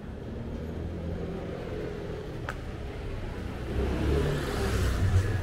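A car passing close by on the street: a low engine rumble with tyre hiss that grows louder about four seconds in and peaks near the end.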